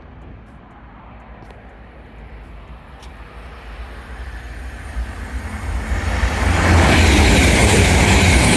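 High-speed passenger train approaching on the main line. Its rumble and rush of air grow steadily louder for about seven seconds, then stay loud as it passes at speed.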